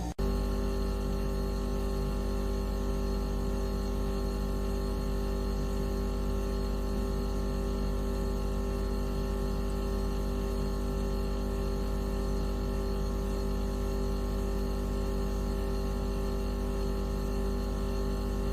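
Synthesized electronic tone track of the kind sold as a mosquito-repellent sound: a steady, unchanging drone of several held pitches over a strong low hum, switching abruptly to this tone just after the start.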